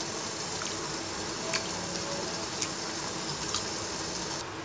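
A hand swishing and rubbing fried mung dal in a bowl of water to wash it, with a few small clicks of the lentils or fingers against the bowl.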